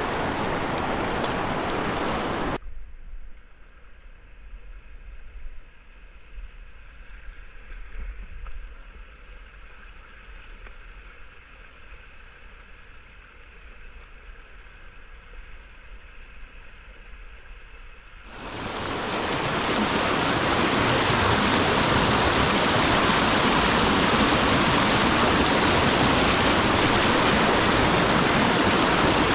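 Rushing whitewater and splashing around a kayak as it is paddled through a river rapid. A few seconds in, the rush drops to a much quieter, dull, muffled sound for about fifteen seconds, then comes back loud and full of hiss.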